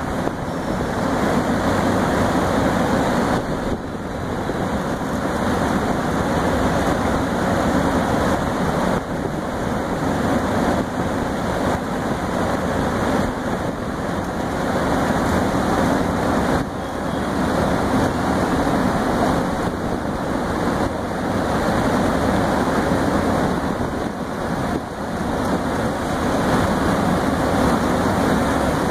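Alugen 6K-I ST portable evaporative air cooler running, its fan blowing a steady rush of air out of the grille and onto the microphone, with small dips and surges in the flow.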